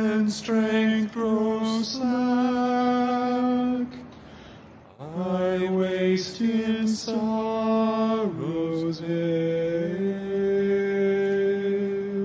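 Male vocal quartet singing a slow hymn in close harmony, two phrases of held notes with a short breath about four seconds in, the second ending on a long sustained chord.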